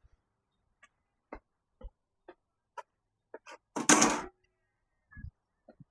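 Light clicks and knocks of small metal parts and bolts being handled, roughly every half second, with one louder, longer clatter about four seconds in and a couple of dull thumps near the end.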